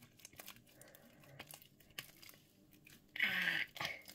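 Sticky homemade slime being kneaded and pulled apart by hand: a run of small crackling, tearing clicks as it sticks to the fingers and peels off, the slime still too sticky after the activator. One louder burst about three seconds in.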